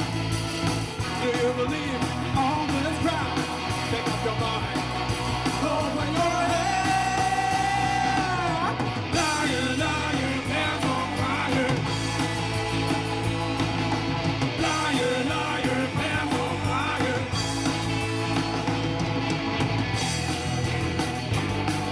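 Live rock band playing, with electric guitars, bass, drums and a male lead singer. About six seconds in the singer holds one long note that drops in pitch as it ends.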